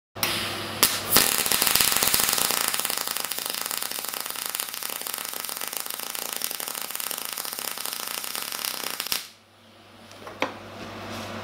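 MIG welding arc from a WIA Weldmatic 200i laying a bead on steel box-section: a loud, steady crackle with a couple of sharp pops about a second in. It stops suddenly about nine seconds in, leaving a low hum and a single click.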